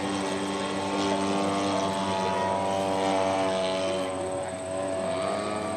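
Engines of large-scale radio-controlled model airplanes running steadily. The pitch sags slowly, then rises again about five seconds in.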